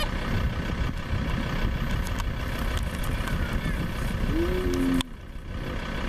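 Idling vehicle engine, a steady low rumble, with a spotted hyena's short rising whine about four seconds in. The rumble drops off suddenly about five seconds in.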